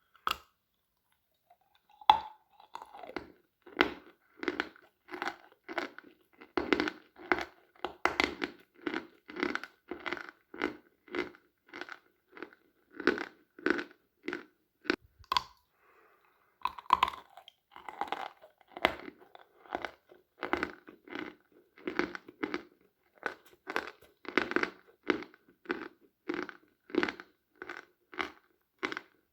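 A person biting and chewing sawn Khrapovsky chalk: a crisp bite about two seconds in, then steady crunching chews about one and a half a second, with a short pause about halfway through.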